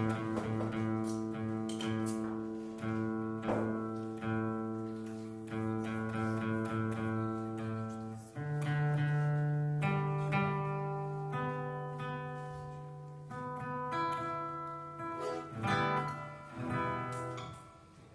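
Instrumental music on plucked guitar strings over held low bass notes, without singing.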